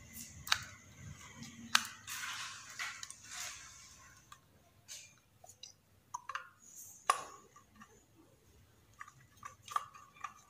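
Faint handling noises at a Selec CH403 temperature controller's screw terminals: wire ends rustling and scraping as they are pushed into the terminal block, and a small screwdriver tightening the terminal screws. There are a few sharp clicks and scratchy rustles.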